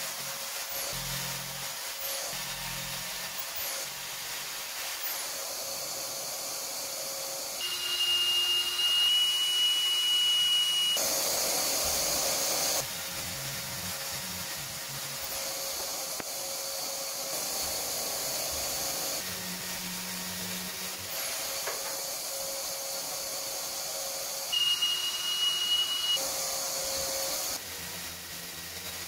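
Corded jigsaw cutting through an MDF sheet, running over the steady hiss of a shop vacuum drawing off the dust. Twice the sound grows louder with a high, steady whine on top, and it jumps abruptly between short cuts.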